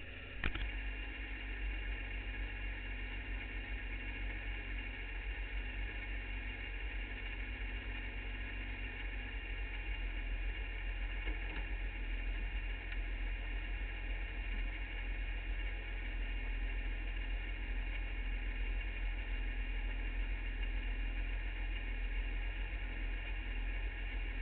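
Engine of an open-wheel hill-climb race car idling steadily with the car standing still.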